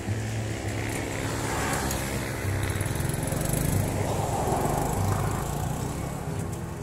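A motor vehicle passing on the road, growing louder to a peak about midway and then fading away, over steady background music.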